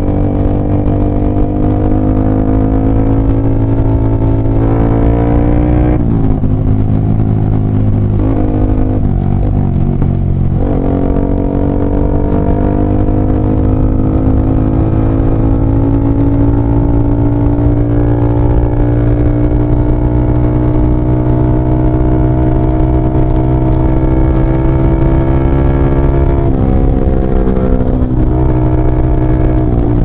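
Yamaha R15 V3's 155 cc single-cylinder engine breathing through a LeoVince GP Corsa carbon short exhaust, ridden at an easy pace. The engine note climbs slowly, dips around 6 s and again between about 8 and 11 s, then makes a long slow climb before dropping again near 27 s.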